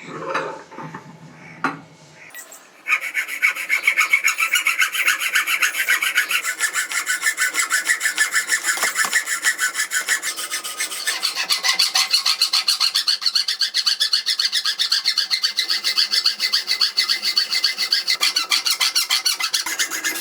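Fast back-and-forth rasping strokes of an abrasive tool on the small steel blade, about five a second, starting about three seconds in. A high scraping tone rides on the strokes and steps up in pitch about halfway through.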